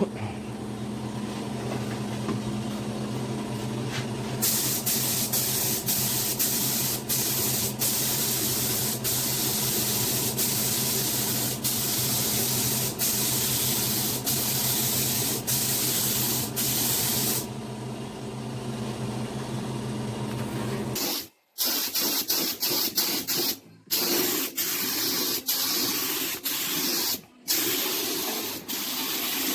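Paint being sprayed onto a car bumper: a steady hiss broken by brief pauses of the trigger, with a low steady hum underneath that cuts off about two-thirds of the way through. After that the spray comes in shorter, choppier bursts.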